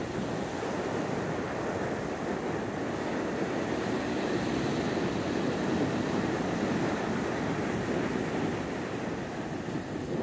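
Ocean surf breaking and washing up a sandy beach in a steady rush of noise, swelling a little midway, with some wind on the microphone.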